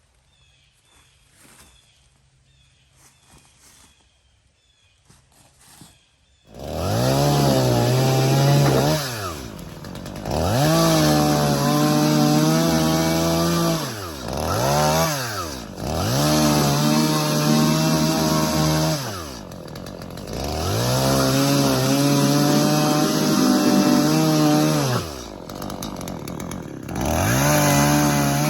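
Near silence with faint ticks, then about six seconds in a two-stroke chainsaw comes in abruptly. It bucks the downed trees into firewood lengths, revving high through about five cuts of a few seconds each and dropping back toward idle between them.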